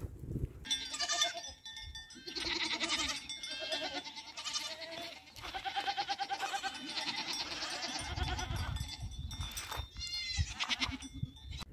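A herd of goats bleating, many quavering calls overlapping one another.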